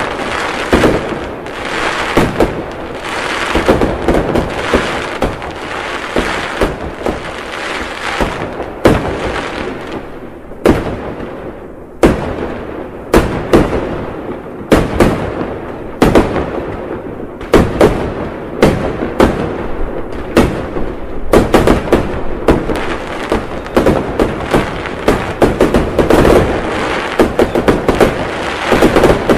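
Fireworks going off in a dense barrage: continuous crackling packed with sharp bangs and pops. The barrage thins briefly about ten seconds in, then loud single bangs resume.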